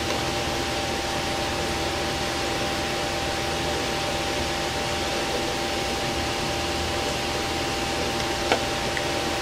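Steady whir of a fan with a constant hum running underneath. A single sharp click about eight and a half seconds in.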